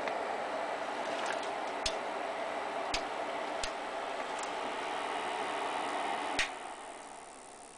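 Cooling fan of a NIKKEY MIG-220 welding inverter running with a steady whoosh, with a few sharp clicks. After a louder click about six seconds in, the fan winds down and fades away.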